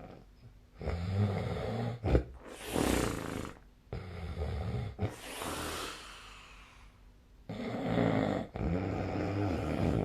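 A sleeping person snoring: several rough, rattling snores, each followed by an airy breath, with short quiet pauses between them.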